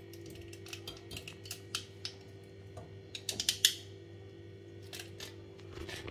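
Small clicks and rustles of fingers handling insulated electrical wires and a plastic socket body, with a quick run of sharper clicks about three and a half seconds in. A steady low hum lies underneath.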